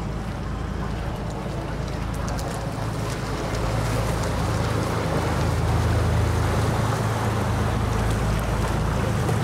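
Boat engine running with a steady low drone that grows louder over the first few seconds.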